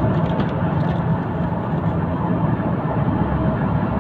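Steady road noise from inside a car cruising on a highway: the drone of tyres and engine, deep and even throughout.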